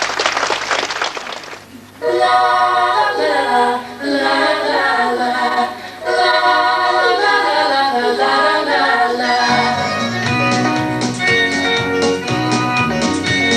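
A short burst of audience applause dies away, then a group of voices starts singing about two seconds in. Instrumental accompaniment with a bass line joins about two-thirds of the way through.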